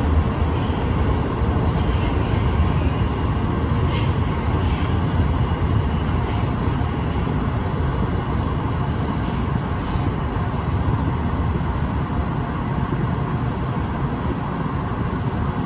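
Ginza Line subway train running into a station platform, a steady rumble of wheels and running gear heard from inside the front car, easing a little toward the end as it slows. A couple of light clicks come through about four and ten seconds in.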